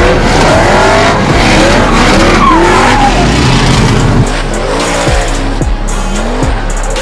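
Drift cars sliding in tandem: engines revving up and down against the limiter while the tyres screech. About four seconds in the car noise falls away and background music with a thumping kick-drum beat takes over.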